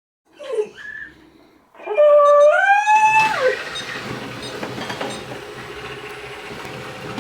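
Chuwi ILIFE V7S robot vacuum cleaner starting up: a short rising electronic tone, then the steady whirr of its suction fan and brushes running.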